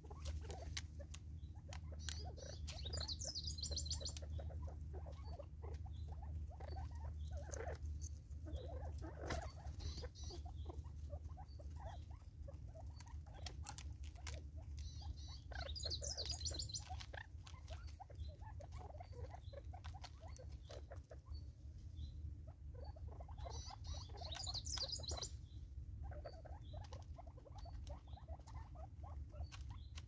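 Natal spurfowl pecking seed from a plastic bottle feeder on a wooden stump: an irregular patter of small clicks and taps from beaks and feet.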